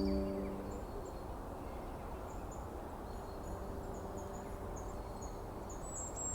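Forest ambience of faint, scattered high bird chirps over a soft, even hiss, with the tail of sustained music tones fading out in the first second. A bird's quick descending trill begins near the end.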